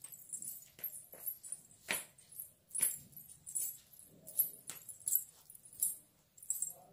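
Silver toe rings hung with tiny ghungroo bells, together with silver bell anklets, jingling with each walking step in short bursts about once or twice a second.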